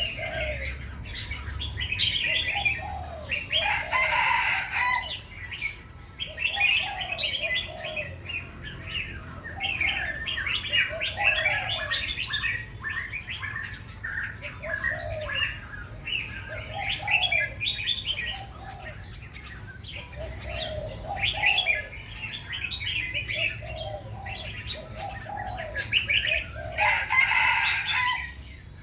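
Several birds singing and chirping in quick phrases, with a lower note repeating every second or two. Two short rustling bursts, about four seconds in and again near the end.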